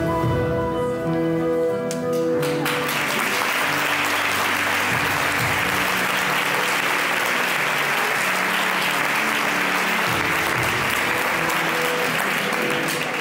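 Instrumental music with held notes ends about two and a half seconds in, and an audience breaks into steady applause that lasts about ten seconds and fades near the end.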